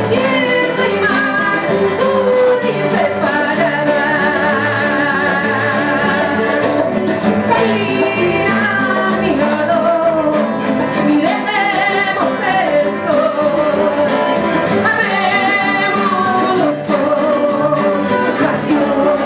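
Live band performance: a woman sings into an amplified microphone over guitars, her voice wavering with vibrato on held notes.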